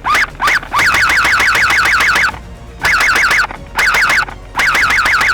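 Airsoft AK rifle firing: single shots about a second in, then a full-auto burst of about a second and a half and two shorter bursts, about seven shots a second. Each shot is a quick rising whine with a snap. The shots all miss, with no hits at all.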